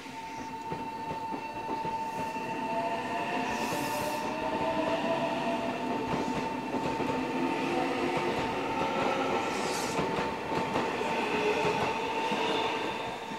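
Meitetsu 3150- and 9500-series stainless-steel electric train pulling away close by, its wheels running on the rails while the motors' whine rises in pitch as it gathers speed. A level-crossing alarm rings with one steady tone throughout.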